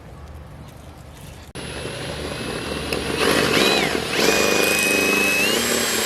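A low steady hum, then after a sudden cut about a second and a half in, a motor running loudly, its high whine gliding up and down before settling into a steady tone that steps up again near the end.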